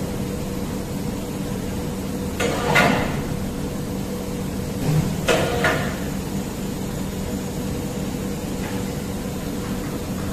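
Steady hum of an automatic zinc spray machine running, with two short bursts of metal clanking from parts being handled at the machine, about two and a half and five and a half seconds in.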